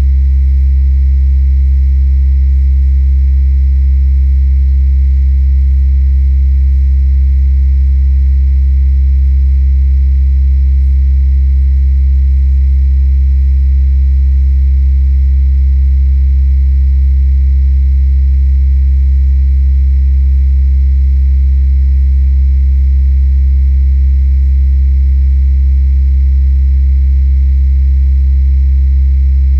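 Steady low electrical hum with no change over the whole stretch, its weight in the deep bass, heard with the bass boosted and treble cut; the recordist attributes it to the nearby power lines.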